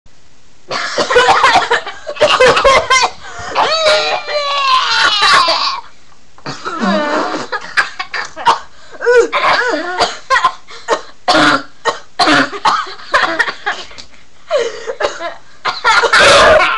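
Young girls coughing in loud short bursts, mixed with laughter, first in a long run, then as a string of quick separate coughs, and ending in a loud burst.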